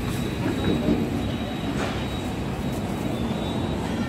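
Steady low rumble of a vehicle engine running.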